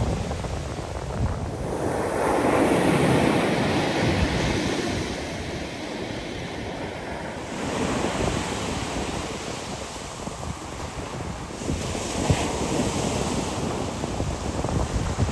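Ocean waves breaking and washing up the shore, surging about two seconds in and twice more later, with wind buffeting the microphone.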